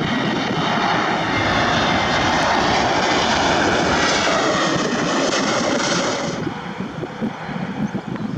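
Airbus A321 jet airliner passing close by, its engines a loud rushing whine that swells, dips slightly in pitch as it goes past and fades about six and a half seconds in. Gusty wind buffets the microphone near the end.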